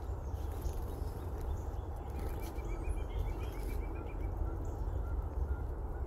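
Wind rumbling steadily on the microphone. About two seconds in comes a quick run of faint small-bird notes lasting a second or two.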